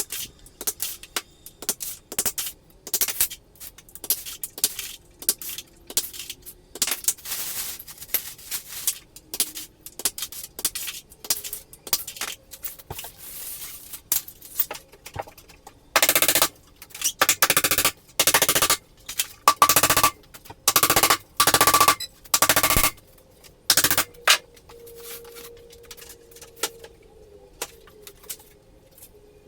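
A power driver run in about ten short bursts in the second half, with scattered clanks and knocks of hardware before them.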